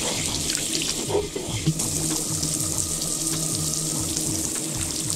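Tap water running hard and splashing as a plastic mixing bowl and then a stick are rinsed clean under it; a steady low hum joins about two seconds in.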